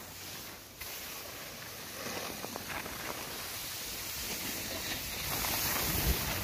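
Wind rushing over the microphone and skis hissing over packed snow while skiing downhill, growing louder as speed builds, with the wind buffeting hardest near the end.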